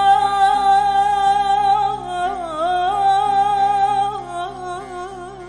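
Music: a long-held melody note with wavering ornaments over a steady low drone.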